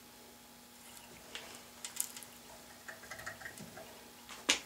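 Faint, scattered clicks and ticks of a 1/4-20 taper tap being turned by hand with a T-handle tap wrench into an aluminum pulley, with one sharper click near the end.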